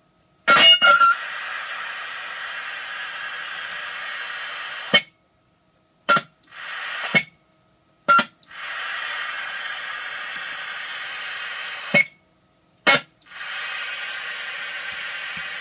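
DAK X CB base station radio switching between receive and transmit as the microphone is keyed and released: steady static hiss cuts out and comes back four times. Each switch-over brings a short squeal or chirp, loudest about half a second in. This is a fault the radio has just developed, and it happens with every microphone.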